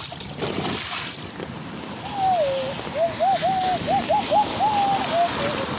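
Storm wind and rain making a steady rushing noise, with a run of short whistle-like notes that glide up and down, starting about two seconds in.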